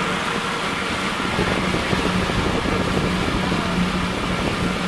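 Towing motorboat's engine running steadily at speed, a constant low hum under a rushing hiss of wind and water.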